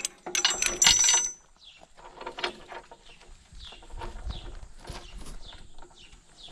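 Harness tug chain rattling and clinking against the steel fittings of a horse cart's shafts as it is hooked up, loud for about the first second, then only light clinks. Short high chirps repeat faintly after.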